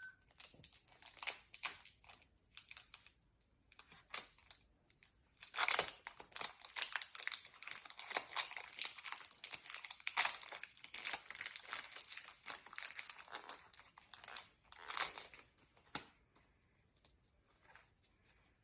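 Foil Pokémon booster pack wrapper being torn open and crinkled by hand: a run of crackling rustles and tearing, loudest about six seconds in and again at about fifteen seconds, growing quieter near the end.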